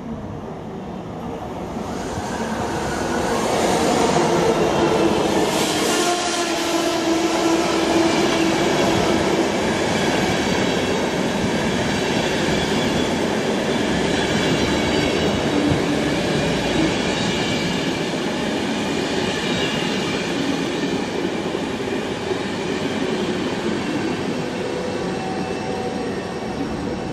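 Locomotive-hauled passenger train rolling past close by on the station track, the wheels rumbling on the rails with thin squealing tones. The sound builds over the first few seconds as the train arrives, then holds loud as the coaches go by.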